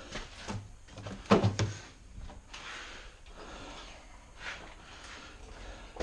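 Irregular metal knocks and clunks from a steel engine hoist and the Jeep 4.0 engine hanging from it as the engine is worked out of the engine bay, the loudest knock about a second and a half in.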